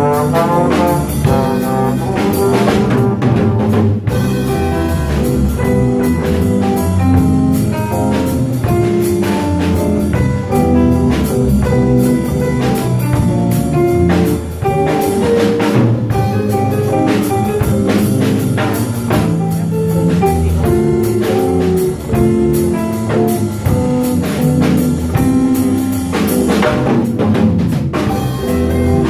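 Small jazz band playing live: brass horns carry the line over piano, bass and a drum kit keeping time with cymbal strokes.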